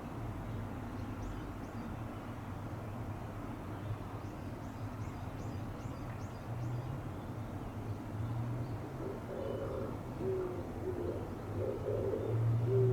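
Oriental turtle dove cooing its low, hooting song in repeated phrases, strongest from about nine seconds in.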